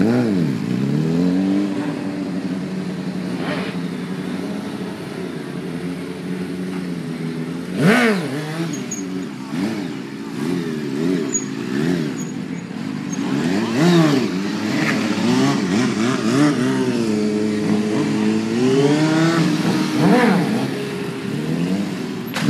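Motorcycle engine revved hard over and over during stunt riding, its pitch swooping up and falling back again and again, with sharp peaks about 8, 14 and 20 seconds in.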